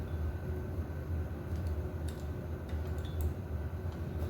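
A few faint, light clicks of a bicycle brake cable and its housing being handled as the new cable is fed through, over a steady low hum.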